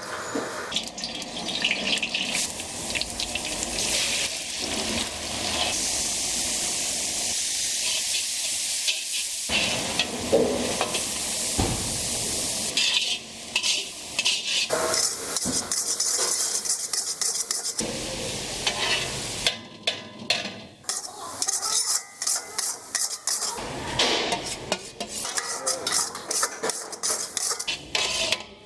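Shredded cabbage mixture frying in oil in a large steel kadai, sizzling, while a flat steel spatula stirs it with repeated scraping and knocking against the pan.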